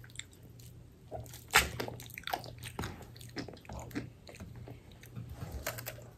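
Eating fried chicken: irregular crunches and chewing of the crispy coating, with one sharper, louder crunch about one and a half seconds in.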